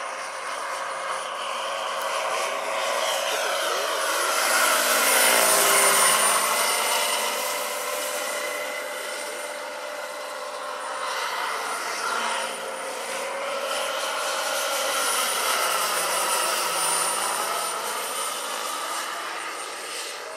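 Turbine-powered scale model CH-46 Sea Knight tandem-rotor helicopter in flight: a steady high turbine whine over the sound of its rotors. It grows loudest about six seconds in and again near sixteen seconds as it passes, the pitch shifting with each pass.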